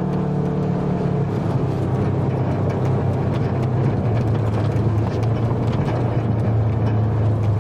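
ATV engine running as the machine drives along a rough grassy track. Its note drops a little about a second in and then holds steady, with small clicks and rattles over it.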